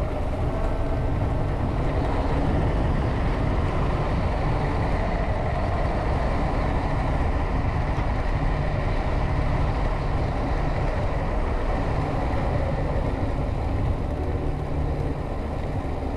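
Wind rushing over an action camera's microphone on a fast bicycle descent: a steady, heavy low rumble of buffeting.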